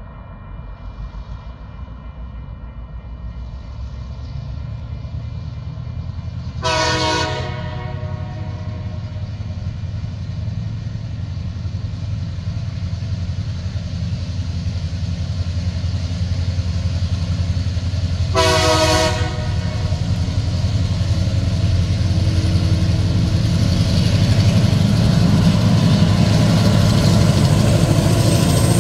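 Diesel locomotives TR08 and 2053 of a TasRail freight train approaching and working uphill, their low engine drone growing steadily louder. The locomotive's multi-tone air horn gives two short blasts, about seven seconds in and again about twelve seconds later.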